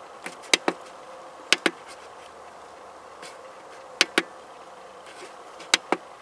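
Plastic push-buttons on a solar charge controller's keypad clicking as they are pressed and released: four presses, each a quick double click, over a faint steady hum.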